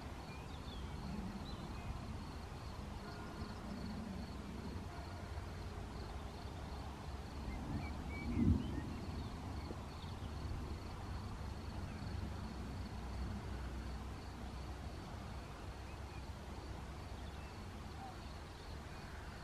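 Faint open-air meadow ambience: a low steady rumble of wind on the microphone, a steady high pulsing chirr and a few short bird chirps. A brief low thump about eight and a half seconds in.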